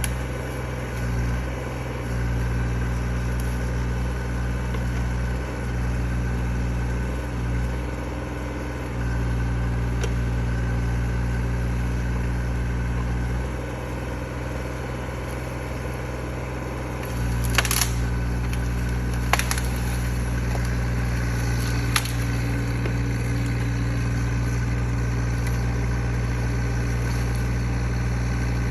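Mini excavator engine running steadily, its low end dipping and returning several times as the hydraulics work the log grapple. Three sharp cracks are heard about two-thirds of the way through.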